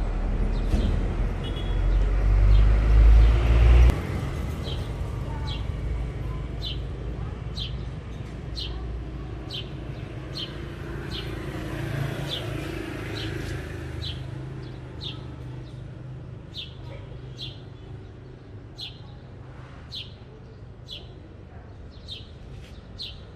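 A bird chirping over and over, short high chirps roughly once a second, over a low outdoor rumble of passing traffic. A loud low rumble fills the first four seconds and cuts off abruptly.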